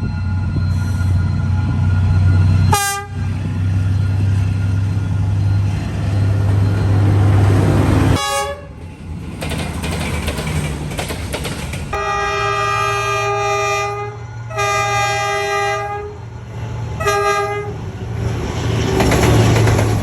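D19E diesel-electric locomotive passing with its engine running, a heavy low hum. Its horn sounds three times in the second half: two blasts of about one and a half to two seconds, then a short one. Brief toots are also heard about three and eight seconds in.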